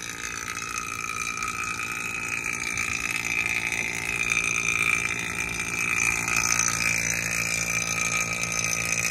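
Refrigeration vacuum pump running steadily, pulling a vacuum on a mini split's copper refrigerant lines.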